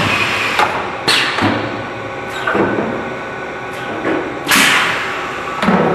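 Automated sheet-metal production machinery running with a steady hum, broken by about five sharp clunks in six seconds, each trailing off in a short hiss.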